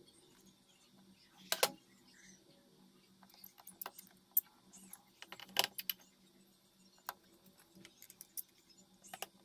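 Small hard clicks and light metallic taps of repair tools and phone parts being handled, with two louder clattering clicks about a second and a half and five and a half seconds in.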